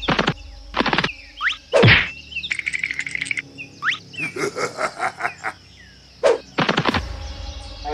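Sound effects added to the animation: a string of sharp clicks and knocks mixed with quick rising, whistle-like chirps, and a short rattling trill about a third of the way in.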